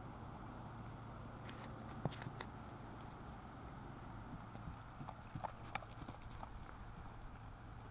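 Hoofbeats of a saddled horse circling on grass: scattered soft knocks and clicks, clustered and loudest about five to six seconds in as it passes close.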